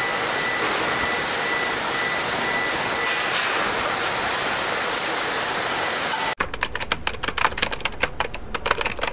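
Steady loud rushing noise of forge-shop machinery with a faint high whistle and no hammer blows. About six seconds in it cuts off abruptly and gives way to rapid typewriter-style key clicks, a typing sound effect.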